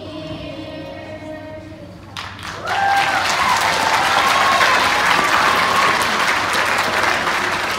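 The song's last held note fades out. Then, nearly three seconds in, an audience breaks into loud applause that keeps going.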